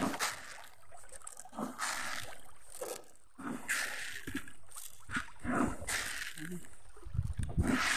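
Irregular water splashes at a pond's surface every second or two, as fish rise to take thrown feed.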